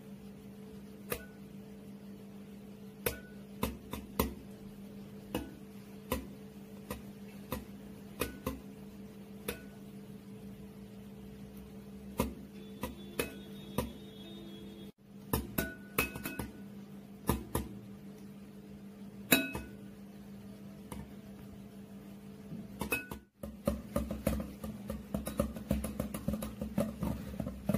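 Wire whisk clinking against a glass bowl as thick homemade mayonnaise is whisked by hand: scattered sharp clinks about once a second, turning quick and continuous near the end. A steady low hum runs underneath.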